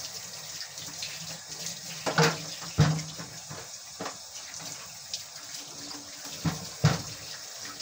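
Kitchen tap running into a sink while things are washed by hand, with several sharp knocks of kitchenware about two to three seconds in and twice more near the end.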